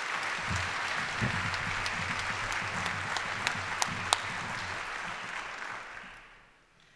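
Audience applauding, with a few sharper single claps standing out midway, dying away near the end.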